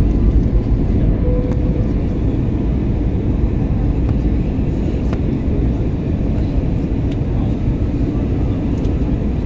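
Steady, low-pitched cabin noise of a jet airliner in flight: engine and airflow noise heard from inside the cabin.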